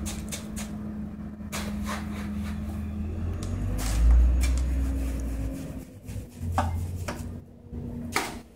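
Hand scoop scraping damp Portland-cement-and-sand mix out of a plastic tub and dumping it into a steel block mold: repeated scrapes and dull knocks. A low rumble underneath swells about four seconds in, then fades out.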